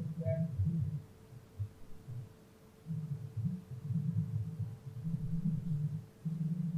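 Low, uneven rumbling background noise that comes and goes, with a faint steady hum underneath.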